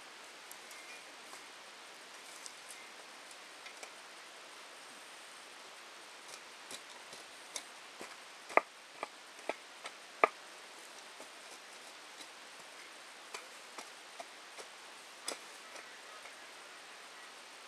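Steel spade blade striking and scraping dry grass stalks and hard ground: scattered sharp clicks and knocks, with a quick run of five louder, slightly ringing knocks about halfway through, over a steady faint hiss.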